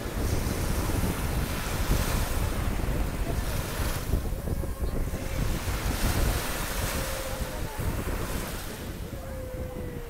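Small waves breaking and washing up a sandy shore, the surf swelling and ebbing every two to three seconds. Wind rumbles on the microphone underneath.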